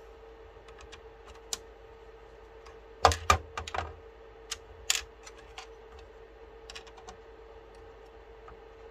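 Scattered light clicks and taps of hands handling parts inside a Bambu Lab P1P 3D printer's chassis, with a quick cluster of louder knocks about three seconds in, over a faint steady hum.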